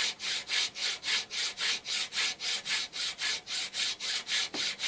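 A hand file rasping back and forth across a metal coin in quick, even strokes, about four a second. It is levelling the ground-down face of the coin and taking off the last high spot.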